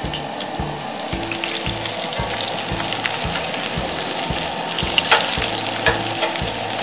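Beer-battered walleye sizzling as it fries in olive oil in a cast iron skillet. Metal tongs clink against the pan about five seconds in as the pieces are turned.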